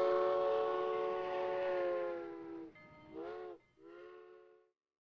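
Steam locomotive chime whistle: one long blast, then two short ones, each sagging in pitch as it cuts off.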